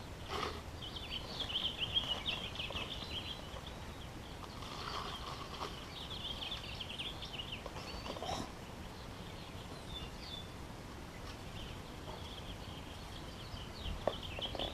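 Small birds chirping and twittering in quick high notes, busiest in the first half, with a few soft knocks now and then.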